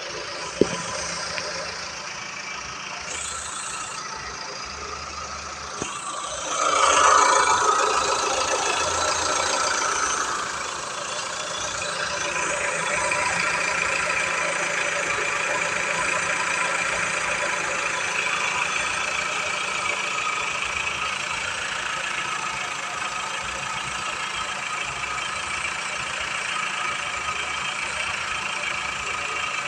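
Engine running, with a sharp click just after the start, then revved up about six seconds in and held at higher speed. It carries the noise under acceleration that the owner cannot place, which some take for worn hydraulic lifters and others for the water pump.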